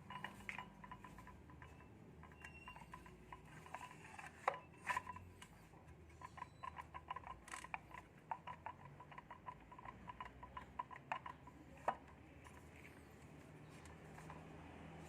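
Faint, irregular light clicks and taps, as of small hard parts or tools being handled, with a few sharper knocks about four and a half, five and twelve seconds in.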